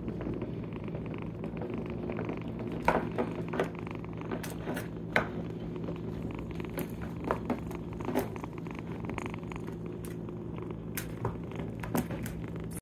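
A young bottle-fed kitten purring close by, a steady unbroken rumble. Scattered light clicks and taps come from kittens batting at a plastic ball-track toy.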